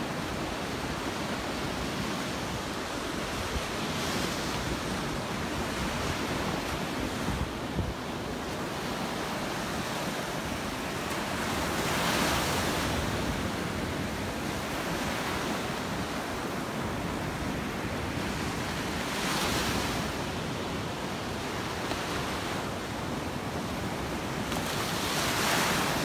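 Small surf breaking and washing up a sand shore: a steady wash that swells louder about four times as waves come in. Wind rumbles on the microphone underneath.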